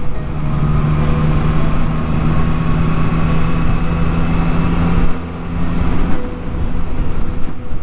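2021 Yamaha MT-09's three-cylinder engine running at a steady cruise, heard from the rider's seat. About five seconds in the loudness dips, and the steady engine note falls away about a second later.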